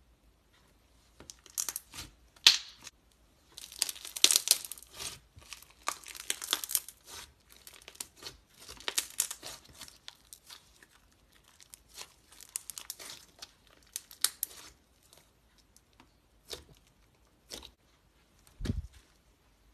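Black slime being stretched and squeezed by hand, crackling and popping in irregular bursts, with a dull thump near the end.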